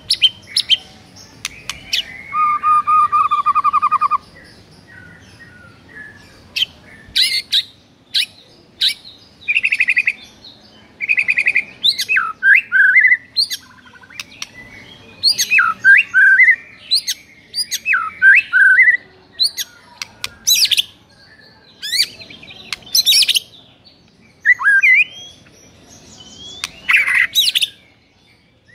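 White-rumped shama singing a loud, varied song of short whistled phrases and sharp calls, with a rapid buzzy trill about two seconds in. It is the territorial song of a shama answering a rival's song.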